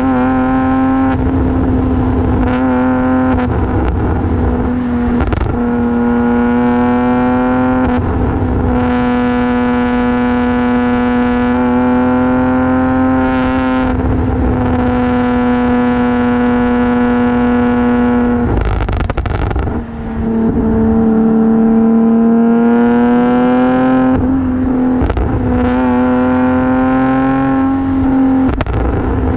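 Modified Infiniti G37 sedan's 3.7-litre V6 through an aftermarket exhaust, running at steady revs with a strong held drone. About twenty seconds in the sound dips briefly, then the pitch climbs steadily as the engine pulls.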